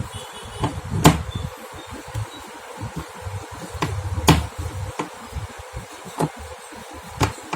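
Scattered sharp metallic clicks and knocks from hand work on a steel concealed cabinet hinge as its nuts are being fitted, about four distinct strikes spread over several seconds with soft thuds of handling in between.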